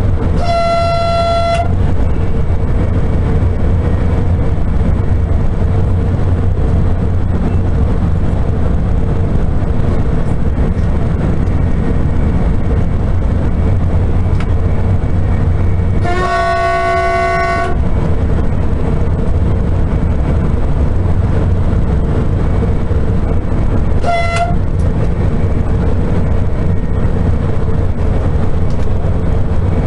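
Cab noise of a Sapsan (Siemens Velaro RUS) high-speed electric train running at speed: a steady rumble with a faint steady hum. The train's horn sounds three times: a one-second blast about half a second in, a longer two-tone blast about 16 seconds in, and a short toot about 24 seconds in.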